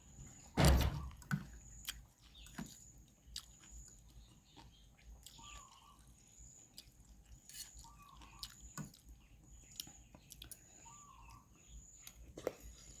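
Close-up mouth sounds of a person eating spicy wide rice noodles in gravy: soft chewing with small wet clicks, and one louder slurp or mouth sound about a second in.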